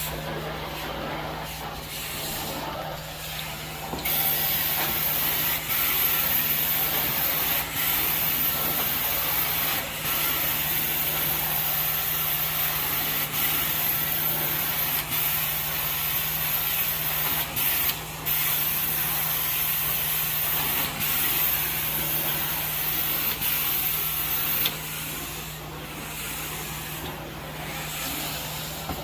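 Four-jet carpet-cleaning wand spraying and vacuuming over the steady hum of the extraction machine. A loud hiss starts about four seconds in and stops near the end, broken by short gaps every second or two, as the spray trigger is let go between strokes.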